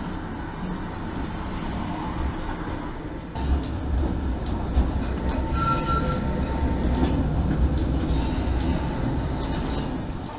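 Tram running on its rails, heard from the cab: a steady low rumble that gets louder about three seconds in, with clicks as the wheels pass track joints and points, and a short high tone a little past the middle.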